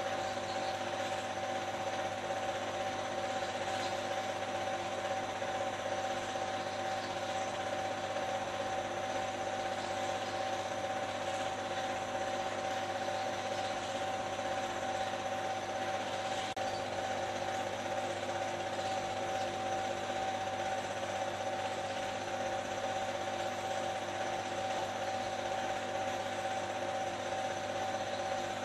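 Steady mechanical whirr with a constant hum of several held tones over an even hiss, unchanging throughout.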